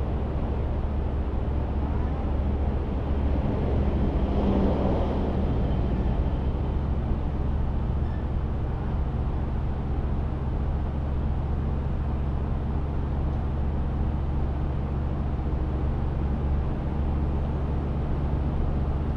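Car driving on city streets: a steady low rumble of road and engine noise, with a brief louder swell about four to five seconds in.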